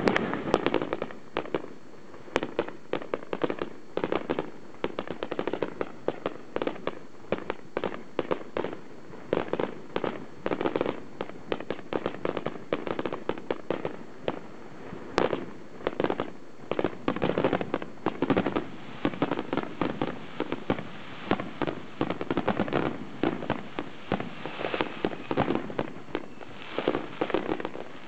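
Aerial fireworks finale: a dense, rapid barrage of shell bursts and crackling, several bangs a second with barely a pause.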